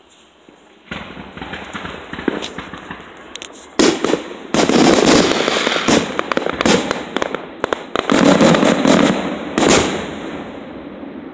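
Aerial fireworks going off: sharp bangs and crackling that build from about a second in, are loudest and densest from about four to ten seconds in, then die away.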